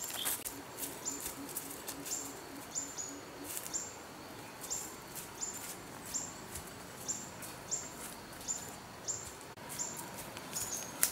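A bird calling over and over with short, high chirps that step down in pitch, about two a second. A faint, rapid low pulsing runs under the first few seconds.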